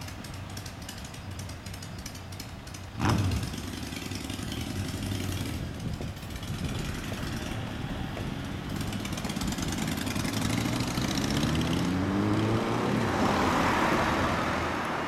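Motorcycle engines running at idle, with a sharp throttle blip about three seconds in, then an engine revving up with rising pitch and growing louder as it pulls away near the end.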